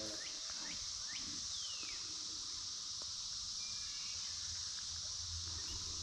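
Steady high-pitched drone of a Brood X periodical cicada chorus, with a few short falling chirps over it.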